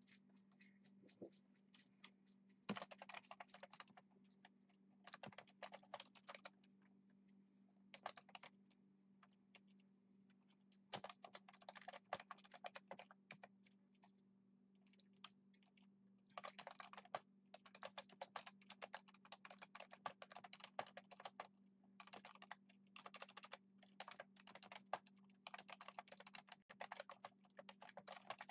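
Typing on a computer keyboard: quick runs of keystrokes broken by short pauses, over a faint steady low hum.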